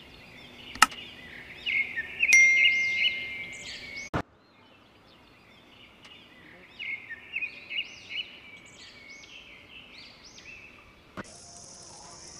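Small birds chirping and twittering in two spells, with a sharp click and a ringing ding in the first. Near the end the chirping gives way to a steady high hiss.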